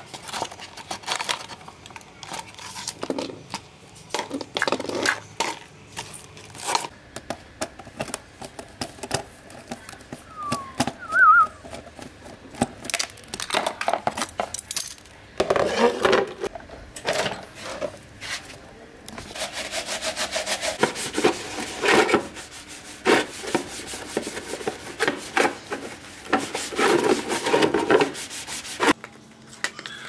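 Hands handling the plastic parts and wiring of a disassembled table fan, giving a run of sharp clicks and knocks. Through the second half come longer stretches of a cloth rubbing and wiping.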